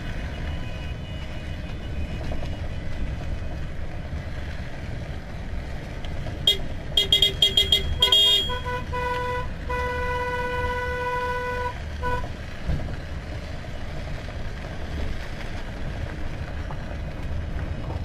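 Car horns honking in a procession convoy: a rapid string of short toots about six and a half seconds in, then a horn held for about four seconds. Under it runs the steady low rumble of the cars driving on the gravel road.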